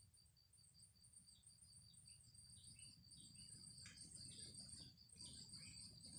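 Faint forest ambience: insects trilling steadily in a high, rapidly pulsing pitch, with a scatter of faint short chirps.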